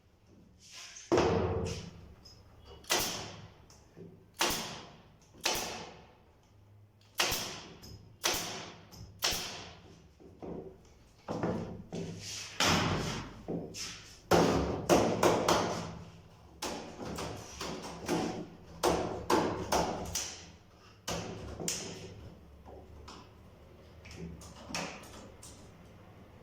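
A run of irregular wooden knocks and thumps, roughly one a second, each sharp with a short ring. They come from work on a wooden bird cage, and they thin out near the end.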